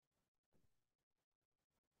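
Near silence: the audio drops out completely.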